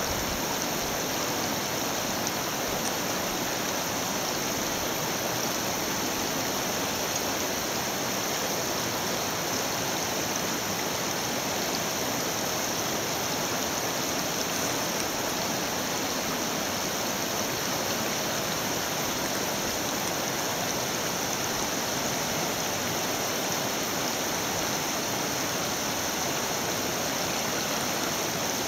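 Fast river rushing over boulders through rapids: a steady, even rush of water.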